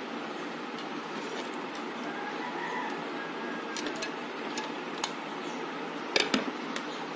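Light clicks and taps as a rubber anode cap is pressed back onto a CRT picture tube with a screwdriver, over a steady background hiss; the sharpest clicks come a little after six seconds in.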